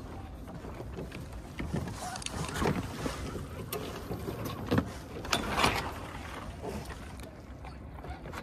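Small fibreglass sailboat hull, a 1977 Alcort Sunfish, moving under sail through light chop: water rushing and slapping irregularly against the hull, with a few louder splashes about five to six seconds in, over some wind noise on the microphone.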